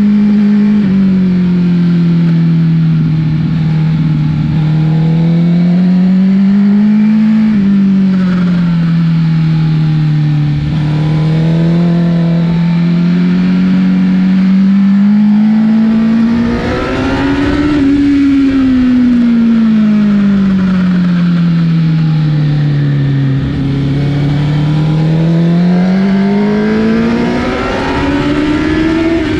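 Honda CBR1000 inline-four engine running under way, its note rising and falling in slow swells lasting several seconds each as the revs climb and drop, highest a little past halfway.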